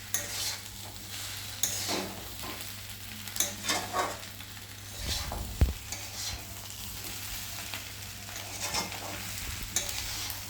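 Chicken pieces sizzling as they fry in a kadai with onion, capsicum and chilli-powder masala, while a spatula stirs and scrapes through the pan in irregular strokes, with one sharper knock about halfway through.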